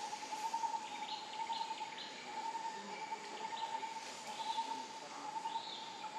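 Forest ambience: a steady high hum on one pitch, with a handful of short bird chirps scattered through it.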